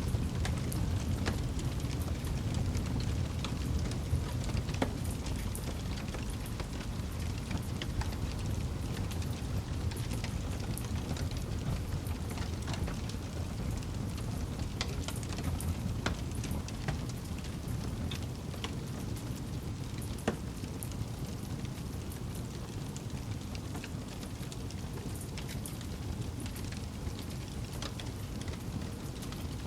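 Wood campfire burning: frequent small crackles and sharp pops, scattered irregularly over a steady low rumble, with one louder pop about two-thirds of the way through.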